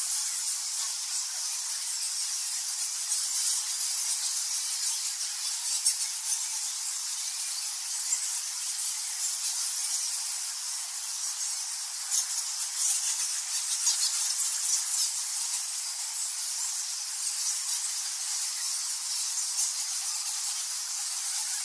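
Bats chittering: a dense, steady, high-pitched hiss of rapid squeaks and clicks.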